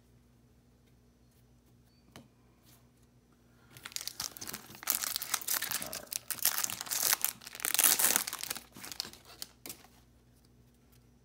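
A foil trading-card pack wrapper crinkling and tearing as the pack is opened, a dense crackle that starts about four seconds in and lasts around six seconds.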